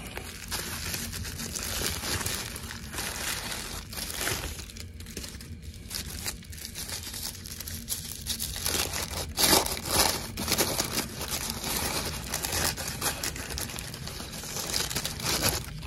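Bubble wrap and then tissue paper crinkling and rustling as they are unwrapped by hand from a small, heavy model, with the loudest rustles about nine to eleven seconds in.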